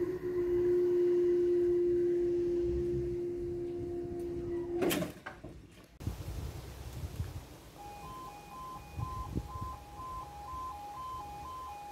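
Level-crossing barrier's power unit whining steadily as the boom rises, stopping with a clunk about five seconds in. After a quiet moment, the crossing's two-tone yodel alarm starts sounding about eight seconds in as the amber light comes on, the warning that a train is approaching and the barriers will lower.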